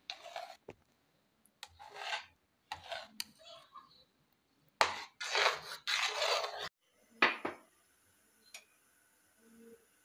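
A metal spoon stirring and scraping through thick egg-and-flour batter in a wide non-stick pan, in irregular strokes. The stirring stops after about seven seconds, and a short clink of metal on a pan follows.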